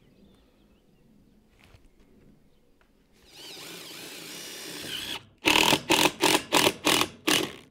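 Cordless power driver whirring steadily for about two seconds, then a run of about seven loud, rapid bursts, about three a second.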